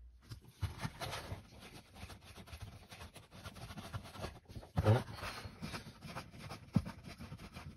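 Rustling and small clicks of a gloved hand working at the screws of the plastic lower trim panel under a VW Golf 5's glovebox, with a louder knock about five seconds in.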